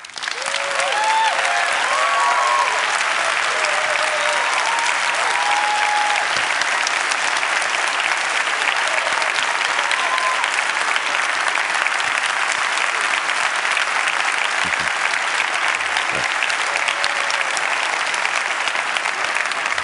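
A large audience applauding steadily and at length, with a few voices whooping and cheering in the first several seconds.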